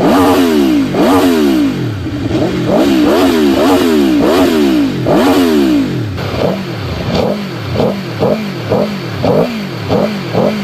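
Aprilia Tuono V4 motorcycle engine revved in repeated throttle blips, each rising and falling in pitch. The blips come about once a second at first, then shorter and quicker, about two a second, from about six seconds in.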